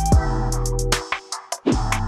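Electronic background music with a steady beat of deep kick drums and hi-hats over a held bass line. The beat drops out briefly in the middle.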